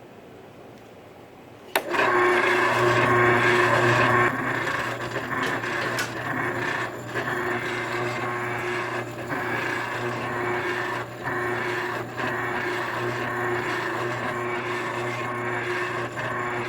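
An electric grinder switches on with a click about two seconds in and runs steadily. Its sound dips and shifts every second or two as a steel knife blade is pressed against it for bevel grinding and cleanup.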